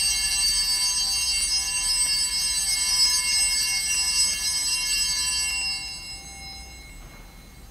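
Altar bells (Sanctus bells) jingling and ringing at the elevation of the consecrated host, the signal of the consecration; the ringing fades away about six seconds in.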